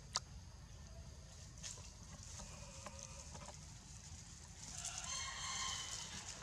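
A sharp click just after the start, then, near the end, a drawn-out animal call of about a second and a half with several stacked pitches.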